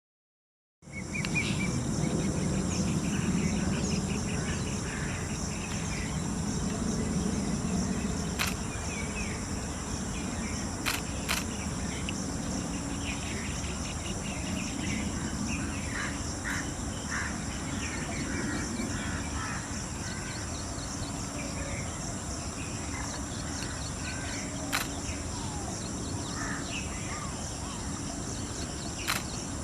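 Outdoor rural ambience that starts about a second in: a steady high-pitched insect drone, scattered small-bird chirps, a low rumble and a few sharp clicks. No peacock call stands out.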